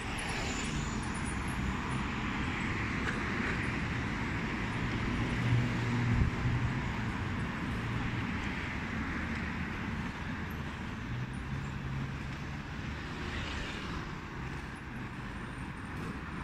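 Steady city street traffic noise heard while moving along the road, with a low hum of motor vehicles that swells briefly about six seconds in.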